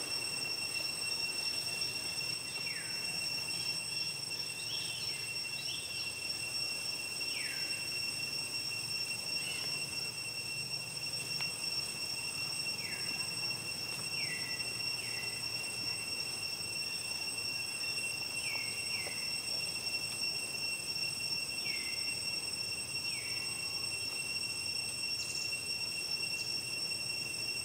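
Steady, high-pitched insect drone, with short calls that slide downward in pitch repeating every second or two over it.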